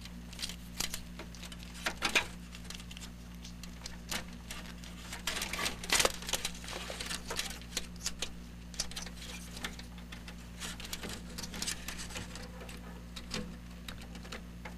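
PC power-supply cables and plastic connectors being handled inside a computer case, with irregular sharp clicks and rustling as the leads are pushed around and plugged in. A steady low hum runs underneath.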